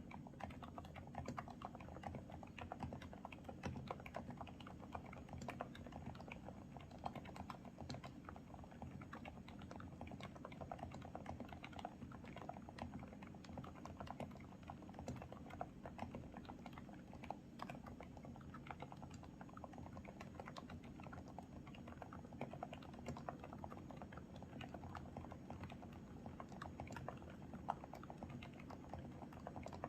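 Aula F65 mechanical keyboard with KTT Silent Blue low-noise (silent) switches being typed on steadily: a fast, dense run of soft, muffled keystrokes.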